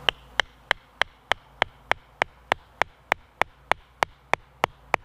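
Hatchet striking the top of a forked wooden stake, driving it into the ground: sharp, evenly spaced knocks at about three blows a second.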